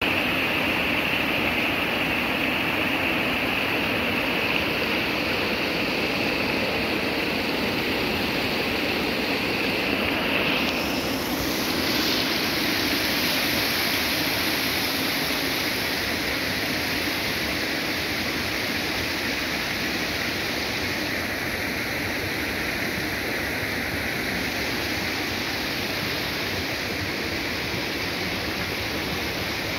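Water pouring from a row of holes in a plastic pipe into a concrete trout tank: a steady rush and splash of falling water, easing a little in the second half.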